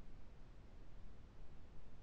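Faint steady background hiss and low hum of an open video-call line, with no distinct event.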